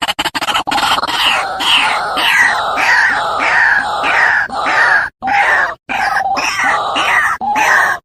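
White-breasted waterhen calling: a harsh, loud note repeated about three times every two seconds, each note falling in pitch, breaking off briefly twice about five and six seconds in.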